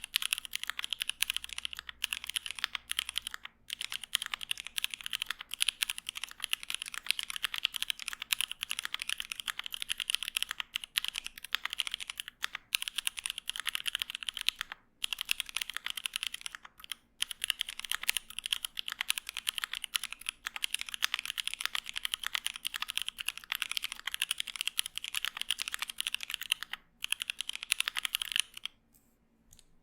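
Continuous fast typing on a KBDfans D65 mechanical keyboard with lubed Tangerine 67g linear switches and GMK Laser keycaps: a dense run of key strikes with a few brief pauses, stopping shortly before the end.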